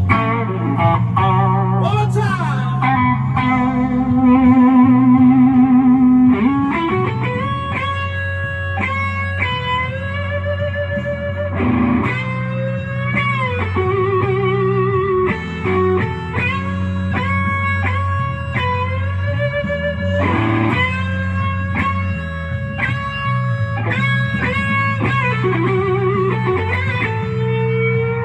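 Electric guitar playing a blues lead, with notes bent up and held with wide vibrato, over a steady low bass line.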